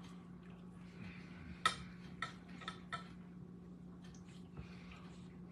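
A few light clicks and clatters of a plate and nacho chips being handled at the table, over a steady low hum.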